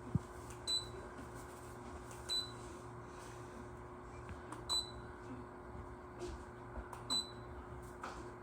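Four short, high electronic beeps about two seconds apart, typical of a ceiling fan's receiver acknowledging remote-control button presses, over a steady low hum of the fan running.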